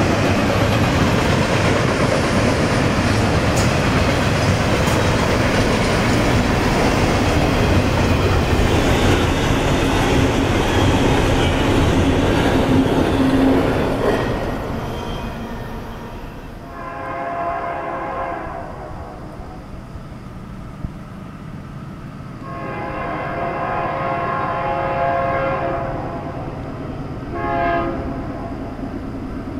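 Double-stack container freight train running past close by, steady wheel-and-rail noise that fades out about halfway through. Then a BNSF freight locomotive's horn sounds the grade-crossing pattern: two long blasts and a short one, with the final long blast beginning at the very end.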